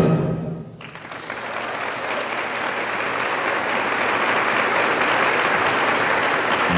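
Audience applauding, starting about a second in and building to a steady level.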